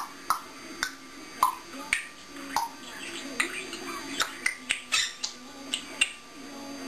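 African grey parrot making a series of sharp clicks, irregularly spaced at roughly two a second.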